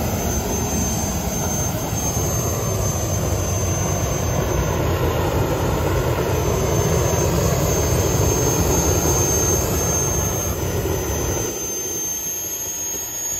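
Mini jet truck's small turbine engine running with its afterburner lit: a loud, steady jet roar with a thin high whine above it. The deep part of the roar falls away about eleven and a half seconds in.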